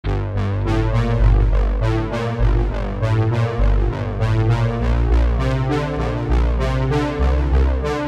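Background music with a deep bass line and notes struck in a steady pulse.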